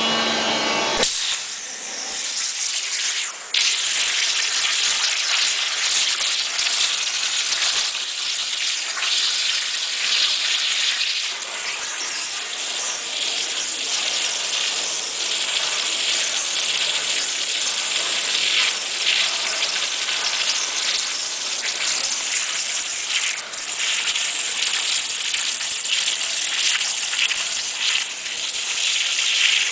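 High-pressure water jet of a CNC waterjet cutting machine hissing steadily as it cuts, starting abruptly about a second in.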